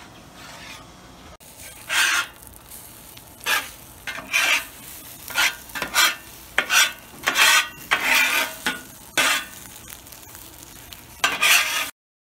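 Slotted spatula scraping and chopping scrambled eggs on a hot Blackstone steel griddle top, about a dozen irregular scrapes over a steady sizzle of the frying eggs.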